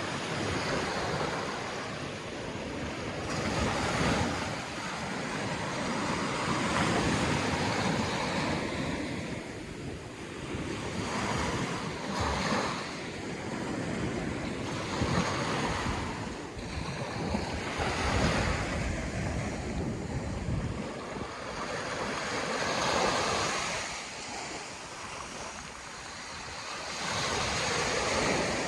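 Sea waves breaking and washing on a sandy beach, the surf swelling and falling back every few seconds, with wind buffeting the microphone.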